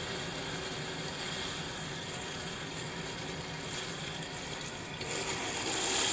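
Water rushing into a whole-house water filter housing and up through the plumbing as its inlet valve is opened, refilling the system after a cartridge change. A steady hiss that grows louder about five seconds in, as the valve comes fully open.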